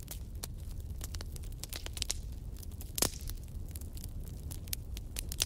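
Wood fire in a fireplace crackling, with many quick irregular snaps over a steady low rumble of the flames. A sharper, louder pop comes about three seconds in, and another near the end.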